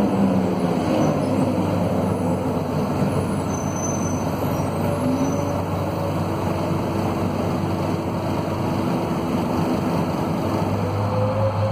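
Scania DC9 nine-litre five-cylinder diesel engine of a run-down Scania K230UB city bus, heard from inside the cabin. Its note falls in the first two seconds, rises about five seconds in, holds steady, and rises again near the end.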